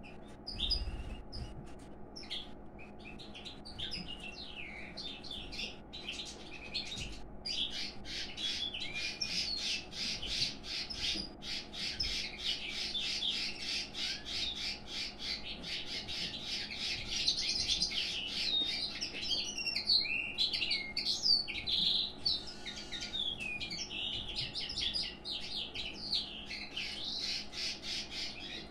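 Pine grosbeaks calling and singing: scattered chirps at first, then from about a quarter of the way in a dense, almost unbroken run of quick warbled notes, the male's courtship of the female.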